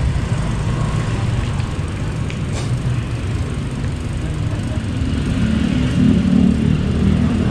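Small motorcycle engine running steadily beneath the rider, with road noise; the engine note gets a little louder about five seconds in.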